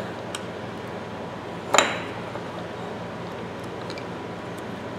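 A steel screwdriver clinking against the head of a rusted, seized ratchet as it is pried at. There is one sharp metallic clink with a brief ring about two seconds in and a few faint ticks, over a steady hum.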